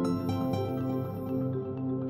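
Background music: a gentle instrumental of held and repeated melodic notes.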